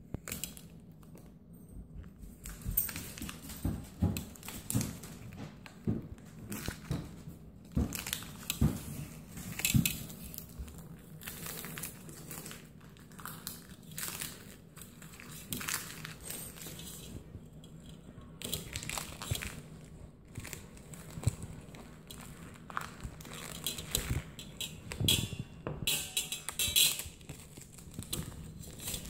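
Protective plastic film being peeled off a metal sign plate, crinkling and crackling in irregular bursts as it comes away and bunches up in the hand.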